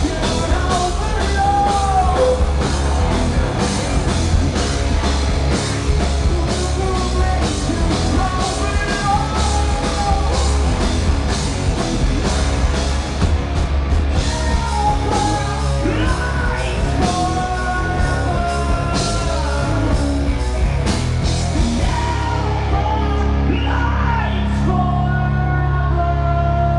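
Live rock band playing a loud song, with a male singer over distorted guitars, bass and a drum kit. Near the end the drums and cymbals stop and a low chord is held under the voice.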